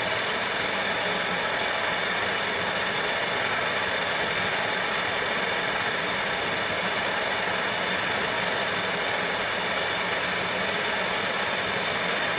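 Gas torch burning with a steady, unbroken hiss, heating a hardened chisel's shank to temper it, drawing the temper colours up toward the edge.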